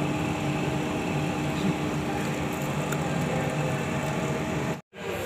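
Electric pedestal fan running: a steady whirring hum with a low steady tone, cutting out for a moment near the end.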